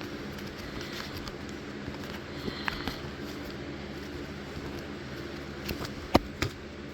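Small objects being handled: light clicks and taps, then two sharp clicks near the end, the first the loudest. A steady low hum runs underneath.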